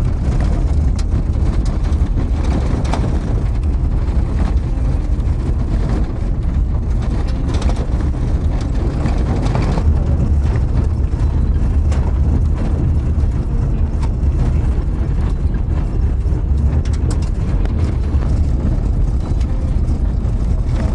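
Steady low rumble of a vehicle driving, heard from inside, with scattered light knocks.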